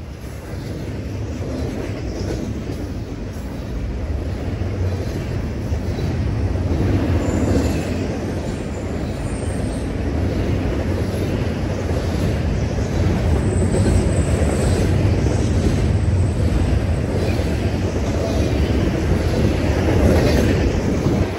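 Double-stack container well cars of a passing freight train: a steady rumble of steel wheels on the rails with faint clicking, growing louder over the first several seconds and then holding steady.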